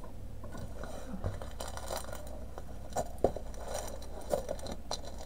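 Paper wrapping and a plastic sleeve crinkling and rustling as a rolled canvas is unwrapped and handled, with scattered small clicks and a couple of sharper taps about three seconds in.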